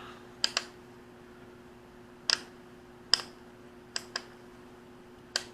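Sharp plastic clicks, about eight, some in close pairs, from handling the GWInstek GDM-350B digital multimeter and its test leads while it is set to ohms.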